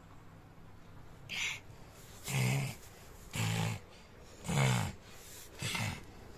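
A three-year-old boy's pretend snoring: five short, rough snores about a second apart, each dropping in pitch, starting about a second in.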